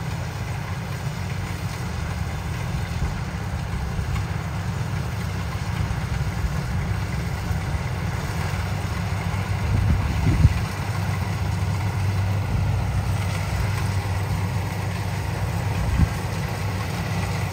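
Rice combine harvester's diesel engine running steadily, a low hum under a broad machinery clatter. There are two brief knocks, one about ten seconds in and a sharper one near the end.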